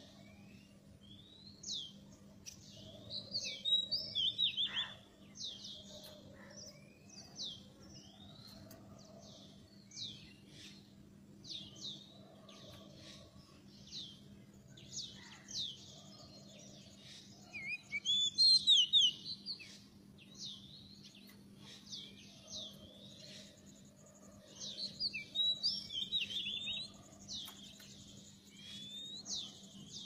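Oriental magpie-robins calling: a steady string of short, sharp downward-sweeping chirps, broken by louder bursts of fuller song a few seconds in, around the middle and near the end. A faint steady hum lies beneath.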